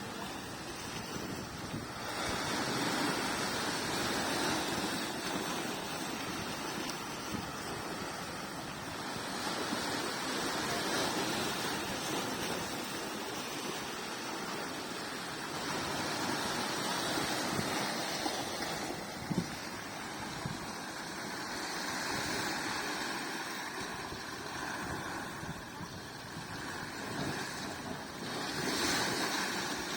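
Sea waves breaking and washing on the shore, a steady rush that swells and fades every few seconds. One short knock comes about two-thirds of the way through.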